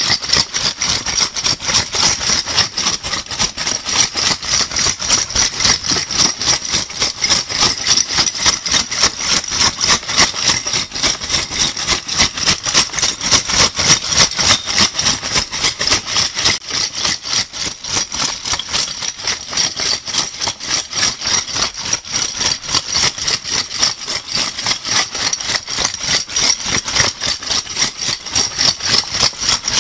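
Metal crown bottle caps shaken together, a continuous clinking rattle repeating in a fast, even rhythm.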